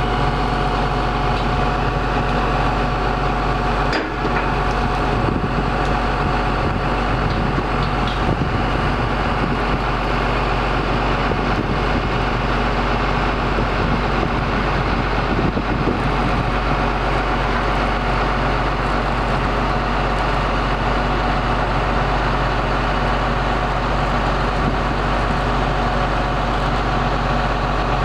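Mobile crane's engine running steadily: a constant drone with a steady whine above it.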